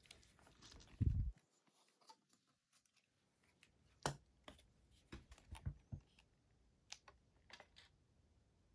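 Camera body and a freshly mounted telephoto zoom lens being handled: a soft low bump about a second in, then a scatter of light clicks and taps.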